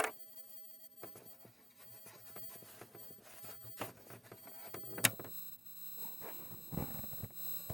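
Small clicks and rustles of wire and alligator clips being handled at a monitor's video jack, with one sharp click about five seconds in. Faint steady high electronic tones run underneath and grow stronger after that click.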